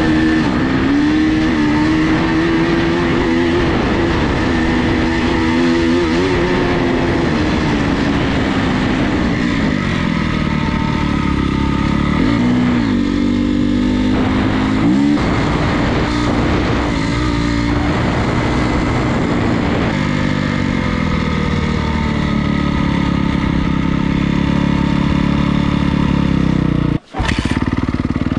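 Honda CRF250R's four-stroke single-cylinder engine running under way, its revs rising and falling with the throttle several times. The sound drops out for a moment near the end.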